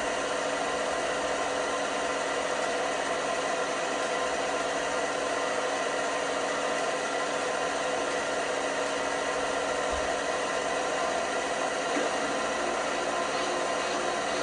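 LG washing machine running with a steady whir, a few faint steady tones held over an even noise.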